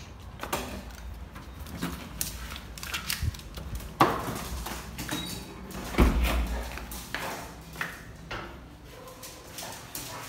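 Knocking and clatter of a barred door being swung open and handled, with scattered clicks and two heavy thumps about four and six seconds in.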